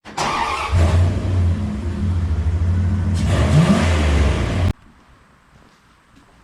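A car engine running and revving, with a brief rise in pitch about three and a half seconds in, then cutting off abruptly.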